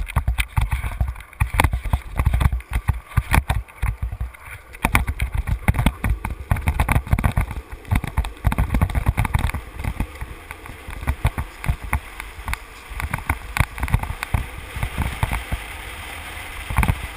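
Wind buffeting the microphone of a camera riding on a street luge at speed downhill, with the wheels rolling over asphalt; a gusty rush with many short knocks and rattles.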